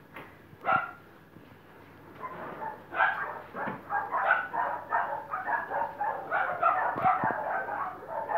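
Leashed greyhound-type dog giving a fast, almost unbroken run of high-pitched cries, starting about two seconds in. A few sharp clicks sound alongside.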